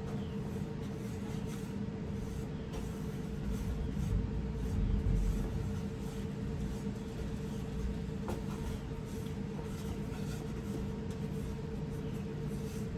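Spatula stirring and scraping flour cooking in a metal saucepan, soft and faint with scattered light ticks, to cook out the raw flour taste without burning it. A steady hum runs underneath.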